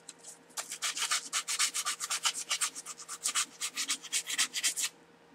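Stainless steel butter knife rubbed back and forth by hand on 150-grit sandpaper, a quick scratchy rasp at about five strokes a second. It starts about half a second in and stops near the end.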